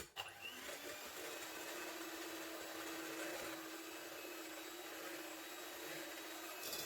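Electric hand mixer switched on, its motor rising in pitch over about a second and then running at a steady speed as it beats eggs while sugar is added a spoonful at a time.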